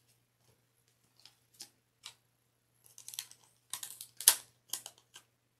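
A soft clear plastic card sleeve crinkling and crackling as fingers pull it open, in a quick cluster of short crackles in the second half, the loudest just past the middle. A few light ticks of cards being handled come before it.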